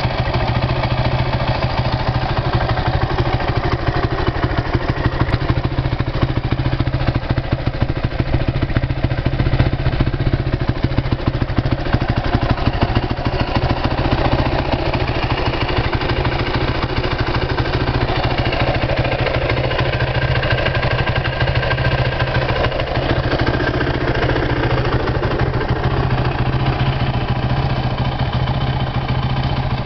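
2008 Yamaha YFZ450 quad's single-cylinder four-stroke engine idling steadily.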